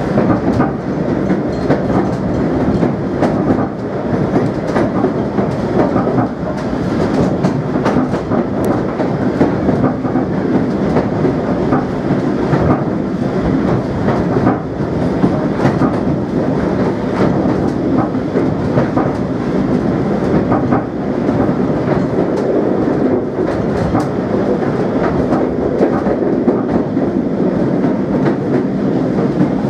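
Steam locomotive running along the line, heard from on board the engine: a loud, steady running noise with the wheels clicking over the rail joints.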